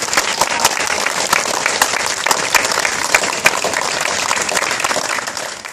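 Crowd applauding: many hands clapping in a dense, steady patter that cuts off suddenly at the end.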